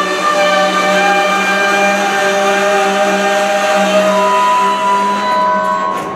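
Freight car wheels and brake shoes squealing, several shrill tones overlapping and shifting, as a long train of covered hoppers slows and stops. The squeal dies away near the end as the train, stalling on the grade, comes to a halt.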